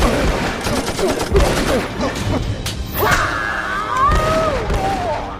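Film-soundtrack gunfire: rapid volleys of shots and impacts, mixed over music.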